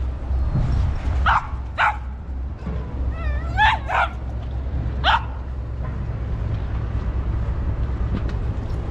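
Cavalier King Charles Spaniel barking in short, high yelps, about six in the first five seconds, with a brief wavering whine about three seconds in. The barking is a fearful protest at crossing a wooden lock footbridge with water on both sides.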